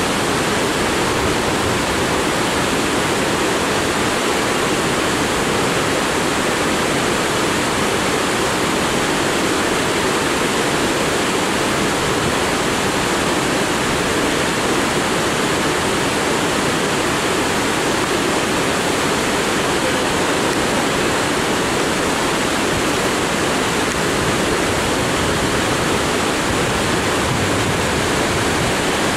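Mountain torrent rushing over boulders: a steady, loud wash of white water that does not change.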